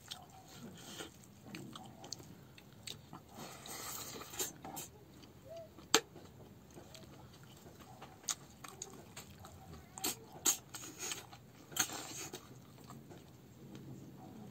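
A person chewing a mouthful of rice and meat eaten by hand, with wet lip smacks and short sharp clicks; the loudest smack comes about six seconds in.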